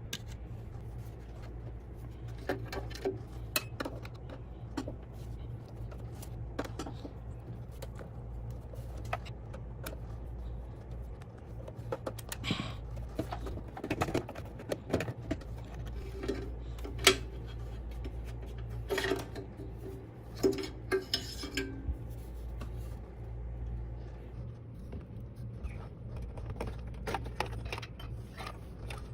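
Irregular metallic clicks and clinks from desktop computer parts being handled and worked on, some ringing briefly, over a steady low hum.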